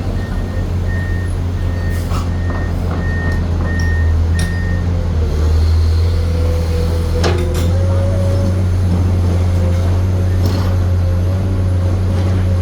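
Komatsu PC210 hydraulic excavator's diesel engine running steadily under load. A warning alarm beeps about twice a second for the first five seconds, then stops. A few sharp metallic clanks sound, and a faint whine holds steady through the second half.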